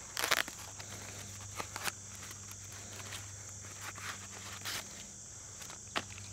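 Scattered clicks, scrapes and rustles of a broken deer shoulder blade being handled and pulled from its tape wrapping. The loudest is a short crackle just after the start. Under them runs a steady high drone of insects.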